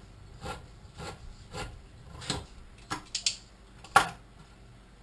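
Manual hand-crank can opener cutting around the rim of a small tin can of tomato paste, a short rasping click with each turn about every half second, then one sharper, louder click about four seconds in.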